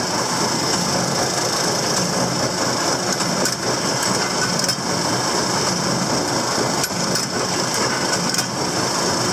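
Krone baler running at full speed off its tractor: a steady mechanical clatter over the tractor engine, with a few sharp knocks from the baler's mechanism.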